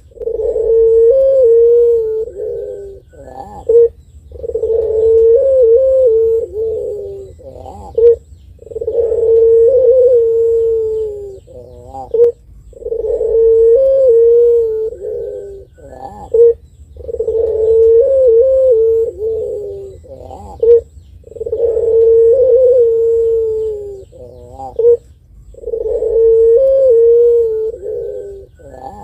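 Puter pelung, a long-cooing Barbary dove, cooing over and over: each call is a short sharp note followed by a long drawn-out, wavering coo of two to three seconds, repeated about every four seconds, seven times.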